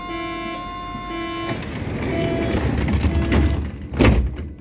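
Berlin U-Bahn H-series train at a station: the door warning tone beeps in short pulses for about the first second and a half, then the sliding door runs shut with a rising rumble and closes with a loud slam about four seconds in.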